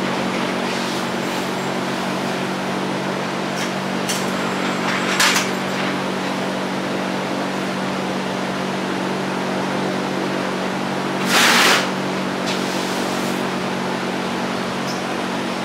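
Steady mechanical hum under a constant hiss. It is broken twice by short bursts of hissing noise; the second, about eleven seconds in, is louder and lasts about half a second.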